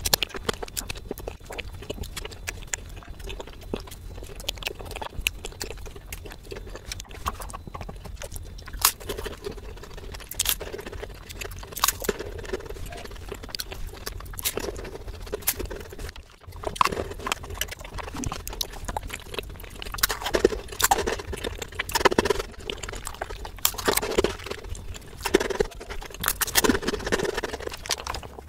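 Mukbang eating sounds: chewing and lip-smacking on chocolate cake and biscuits, a dense run of sharp wet mouth clicks.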